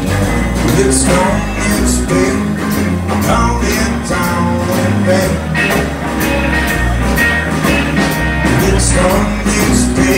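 Upbeat rock-and-roll music with a singer, bass and drums keeping a steady beat; it cuts off suddenly at the end.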